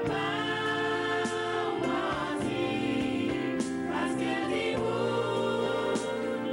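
Gospel song: voices singing long held notes over instrumental accompaniment.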